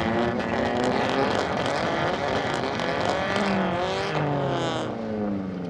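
Lifted Mazda Miata's four-cylinder engine running hard in a dirt-track race, its note climbing under throttle and then dropping away after about three and a half seconds.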